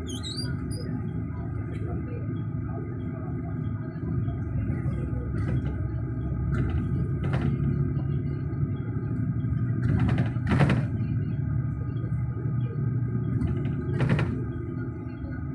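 Low rumble of a moving vehicle heard from inside its cabin, with steady humming tones over it and a few knocks or rattles, the loudest about ten seconds in and another near the end.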